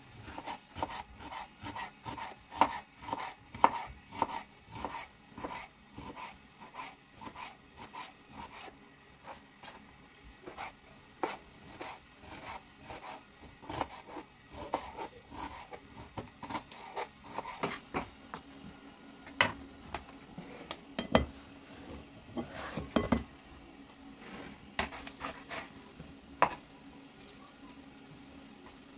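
Kitchen knife chopping bell pepper on a plastic cutting board. For the first several seconds the strokes come quick and even, about two or three a second, then they turn slower and scattered, with a few sharper knocks.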